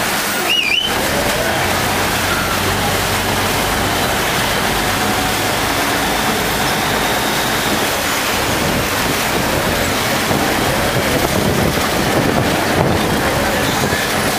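River ferry's engine running with water rushing and churning along the hull as the boat comes alongside a pier, a steady loud noise with a low hum underneath. A short wavering whistle sounds about half a second in.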